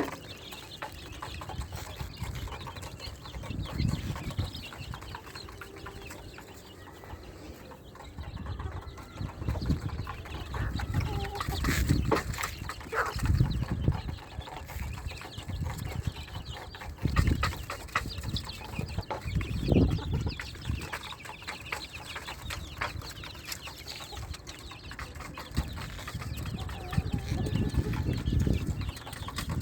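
Backyard chickens clucking on and off, mixed with scattered knocks and low thumps.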